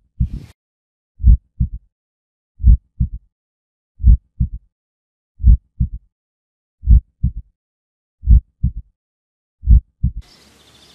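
Heartbeat sound effect: a slow, low double thump, a loud beat followed closely by a softer one, repeating about every 1.4 seconds with silence between. Near the end a faint outdoor hiss comes in under it.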